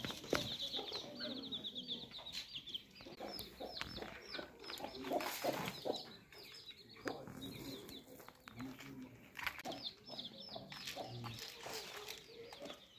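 Domestic fowl clucking, with many rapid, high, falling chirps over it, densest in the first few seconds and again near the end.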